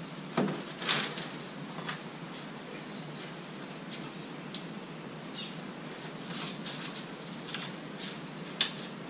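Sharp clicks and knocks from a two-piece aluminium kayak paddle being handled and fitted together: the loudest come about half a second in, at one second, and near the end. Canaries chirp in the background.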